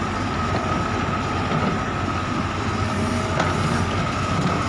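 Heavy diesel engine running steadily under load, a continuous low rumble with a faint steady high whine over it.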